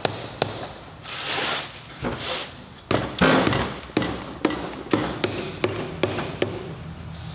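Aluminium case halves of a Subaru EJ20 boxer engine block being forced apart: a string of sharp taps, about two or three a second through the second half, after a few short stretches of scraping noise.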